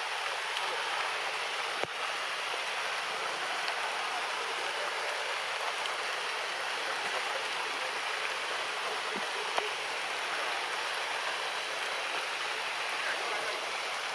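Steady rain, an even hiss, with a couple of sharp ticks, one about two seconds in and one near the middle.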